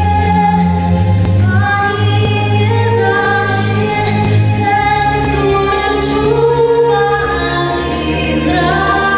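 Slow vocal music: singing voices holding long notes over low sustained notes beneath.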